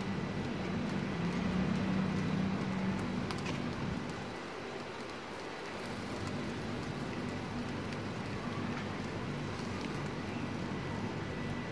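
Chicken satay sizzling on skewers over glowing charcoal, with faint crackles, under a steady low hum that is louder for the first four seconds.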